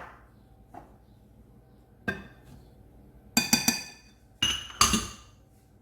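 A spoon knocking against the rim of a mixing bowl with a ringing clink, knocking mascarpone off into the batter: one tap about two seconds in, then two quick runs of several taps.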